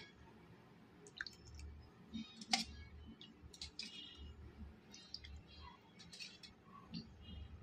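Scattered light clicks and clinks of a steel spoon against stainless steel bowls, some with a short metallic ring, and a sharper click about two and a half seconds in.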